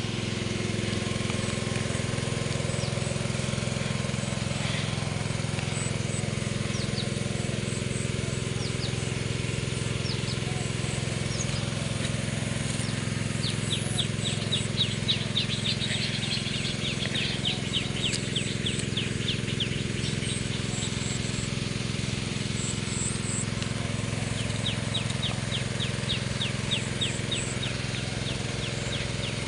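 Water hissing from perforated spray hoses misting over young trees, over a steady low motor hum. Twice in the second half a rapid series of sharp ticks, about five a second, runs for several seconds.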